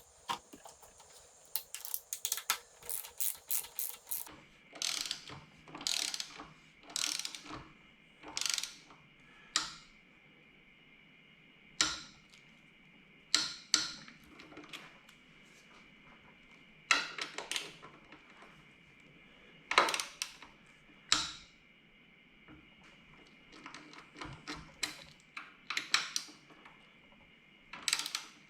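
Ratchet wrench clicking as the handlebar riser clamp bolts are tightened: quick runs of clicks for the first few seconds, then a string of separate short strokes.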